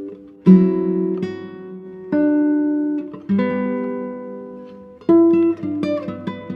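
Instrumental guitar music: four chords are struck and left to ring, then quicker picked notes come in near the end.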